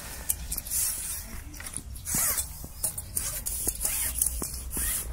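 Close handling noise of a fishing pole and float rig: scattered clicks and rustles as the pole is gripped and moved. A short rising squeak about two seconds in.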